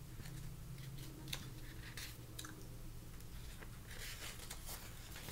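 Quiet room tone: a steady low hum with a faint hiss, and a few soft clicks and rustles of small handling noises.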